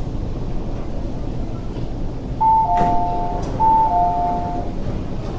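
MTR IKK-train (SP1900) door chime as the doors open at the platform: a two-note falling ding-dong played twice, about a second apart, with a sharp click near the first chime, over the train's steady cabin hum.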